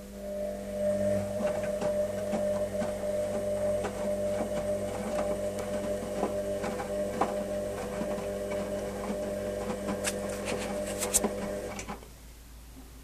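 Hoover Special Edition 1300 washing machine's motor turning the drum during the wash: a steady hum with scattered clicks and knocks, which cuts off suddenly near the end.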